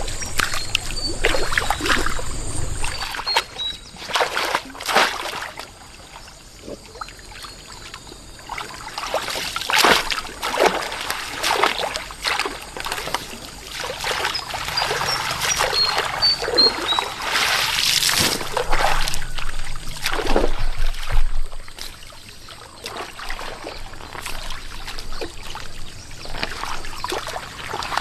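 Water splashing and trickling in irregular bursts, with quieter lulls between them. A few short high chirps come in near the start and again about halfway through.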